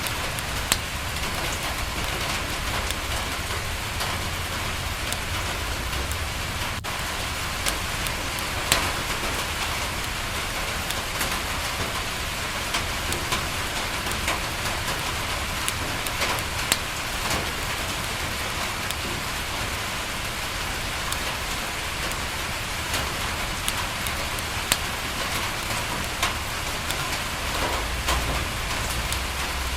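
Steady rain falling on a window, with scattered sharp crackles from a wood fire and a low rumble underneath.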